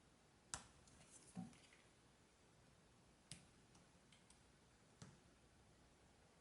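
Near silence with four faint, sharp clicks of small repair tools against the iPhone X's internals while its battery connector is being disconnected.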